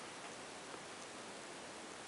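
Faint steady hiss of room tone with a few faint ticks.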